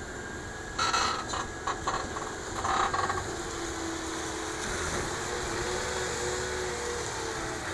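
Case IH Quadtrac 600 tracked tractor's diesel engine running under load as the tractor pushes soil with a front dozer blade. A run of loud knocks and clanks comes in the first three seconds, then a steady drone with a slightly wavering whine.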